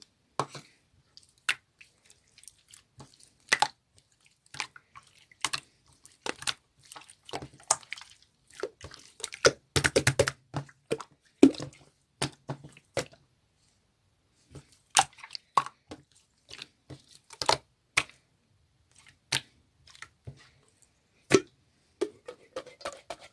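Clear slime being squeezed and pressed by hand, giving irregular pops and clicks, with a dense run of quick pops about ten seconds in and a short pause a little after the middle.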